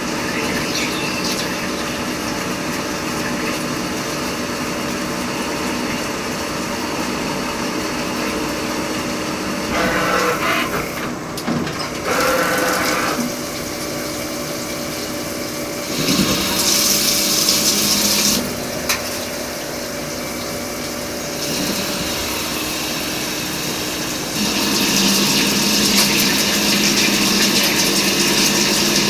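CNC lathe running with a steady hum carrying several steady tones, broken twice by louder hissing noise: once briefly around the middle and again in the last few seconds.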